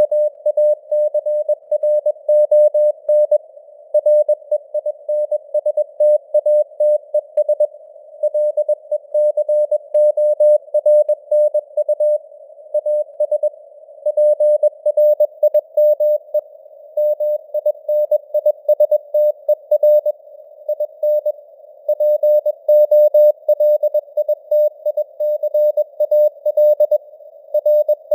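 Morse code at 21 words per minute: a single mid-pitched tone keyed on and off in quick dots and dashes, set in a narrow band of simulated radio hiss.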